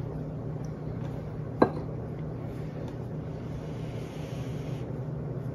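A metal spoon clinks once against a ceramic soup bowl about a second and a half in, with a short ring, over a steady low room hum.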